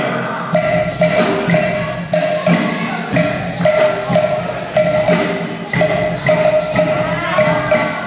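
Brass band playing an up-tempo tune, with saxophones and other horns over a steady percussion beat of about two strokes a second.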